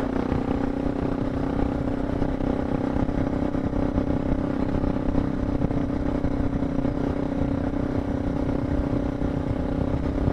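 Suzuki DR650's single-cylinder four-stroke engine running at steady revs as the motorcycle rides along a dirt road.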